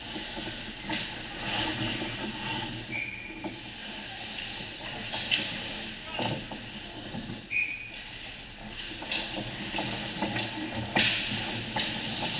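Ice hockey play close to the goal in an echoing indoor rink: skate blades scraping and hissing on the ice, with sharp clacks of sticks and puck throughout. The loudest clack comes about eleven seconds in.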